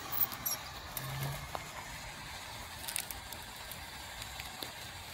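Faint, scattered light clicks and small metallic rattles from handling metal camp utensils.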